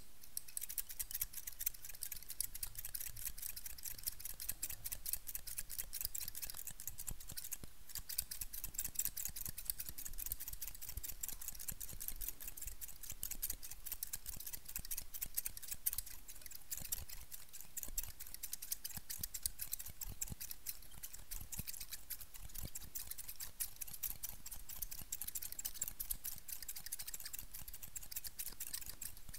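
Steel barber shears and a second pair of scissors snipping right at the microphone: a fast, unbroken run of snips.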